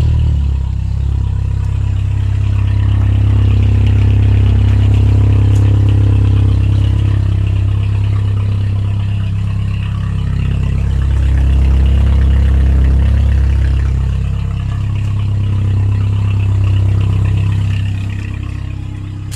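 Volkswagen Polo engine running with a broken exhaust: a loud, deep, steady exhaust rumble that swells a little a few times.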